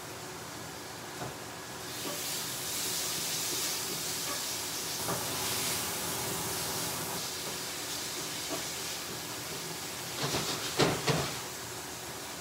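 Raw king prawns frying in a pan, a steady sizzling hiss that grows louder about two seconds in. Near the end a few quick knocks and scrapes as a utensil stirs them in the pan.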